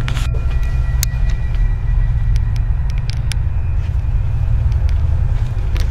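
A steady low rumble with a few light clicks and taps.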